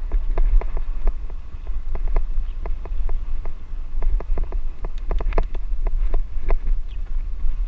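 Wind rumbling on a moving helmet camera's microphone, with irregular clicks and rattles from a bicycle jolting over a rough dirt track.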